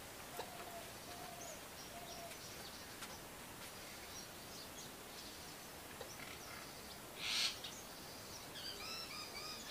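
Birds calling in the background: a run of short, low, hoot-like notes near the start and quick high chirps near the end. About seven seconds in comes a brief burst of hissing noise, the loudest sound.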